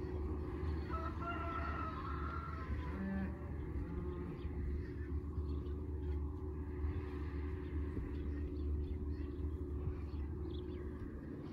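A distant skid steer engine runs steadily. About one to three seconds in, a bird calls, a short series of crowing notes over the engine hum.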